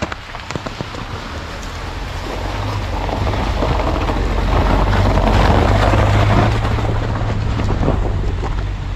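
Waterfall rushing, growing louder to a peak about five or six seconds in and then easing off, over the steady low hum of a car engine.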